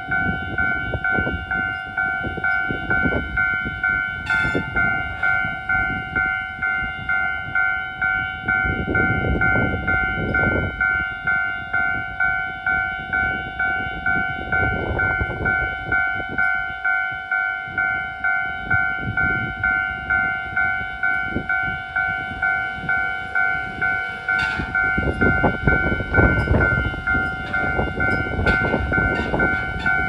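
Level-crossing warning bell ringing steadily, about two strokes a second, under gusts of low rushing noise that grow louder near the end.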